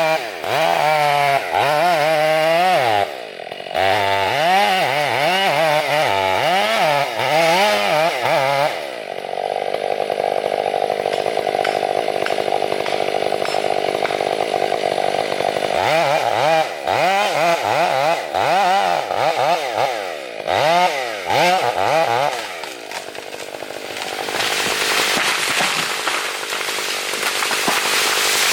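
Chainsaw revving up and down again and again, then held at a steady high speed for several seconds, then revving up and down again. A steadier rushing noise takes over near the end.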